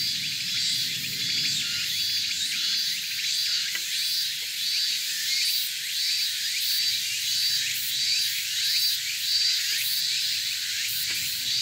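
Insects calling in a steady chorus: a pulsing high call that repeats about twice a second over a continuous high buzz.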